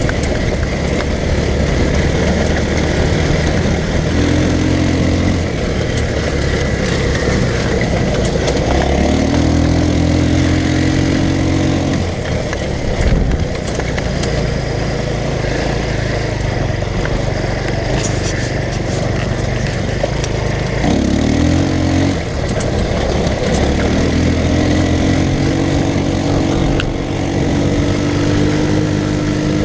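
Off-road go-kart's small engine running, its pitch rising as it revs up several times over a constant low rumble.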